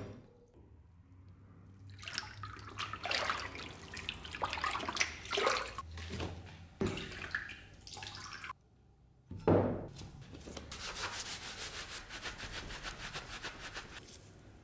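A brush scrubbing a rusty steel axe head in a tub of water and soda solution. The wet scraping strokes come in irregular bursts, then there is a sharp knock, then a faster, even run of scrubbing near the end.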